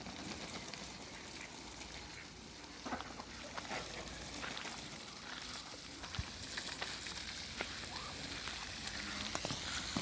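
Ducks dabbling and splashing in shallow water: a steady faint crackle with scattered small clicks and a few short, soft calls.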